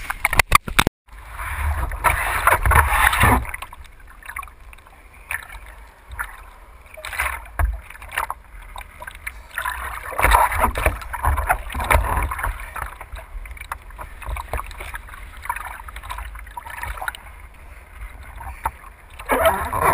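Seawater splashing and sloshing against a surfboard and a board-mounted action camera at water level, in uneven bursts like paddle strokes over a low rumble of water and wind.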